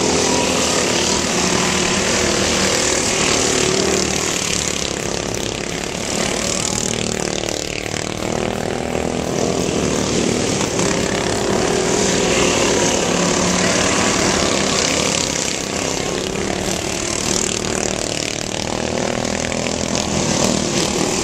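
Several racing ride-on lawn mowers' small engines running together, their pitch rising and falling as the mowers go around the track.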